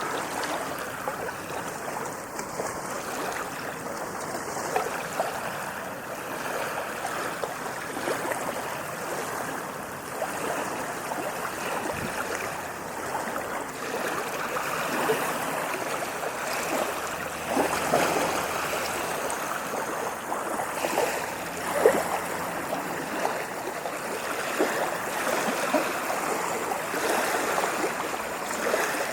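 Ocean waves washing and lapping on a shore: a steady wash of water broken by many small splashes, with one sharper splash about three-quarters of the way through.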